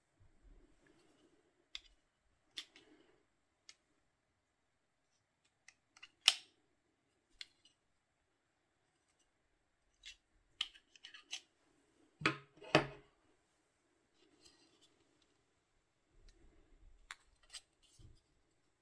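Plastic earbud charging case handled up close, its hinged lid clicking open and shut and the buds knocking in it: scattered sharp plastic clicks and snaps, the loudest about six seconds in and a quick pair around twelve seconds, with soft rubbing of fingers on the case between them.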